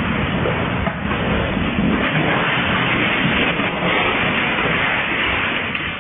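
Earthquake shaking a shop: a loud, steady rumble and rattle of the building and its contents through a security camera's microphone, easing off near the end.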